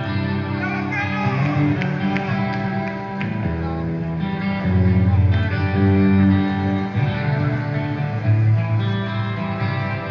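Live rock music led by a guitar, with sustained chords over a deep bass and no singing.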